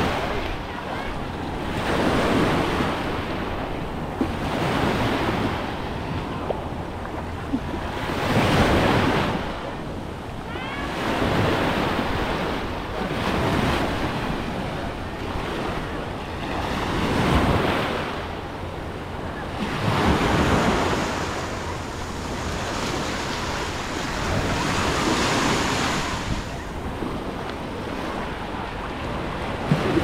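Sea waves breaking and washing up the beach, swelling and fading every two to four seconds, with wind on the microphone.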